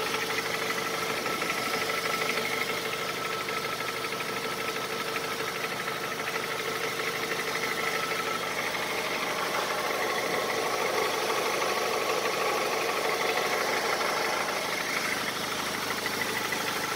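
Honda CR-V 2.4 i-VTEC four-cylinder petrol engine idling, heard from under the raised car, with a steady rapid diesel-like knocking. The owner places the knock in the exhaust tract, at the muffler. It fades as the engine warms up.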